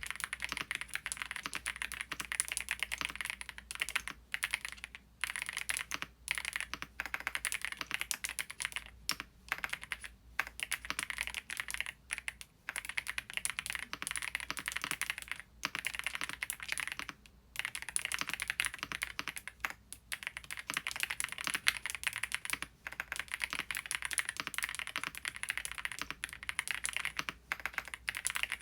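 Typing on a Qsenn Q104 mechanical keyboard with PBT keycaps and Haimu Midnight switches: fast runs of keystrokes broken by short pauses every few seconds.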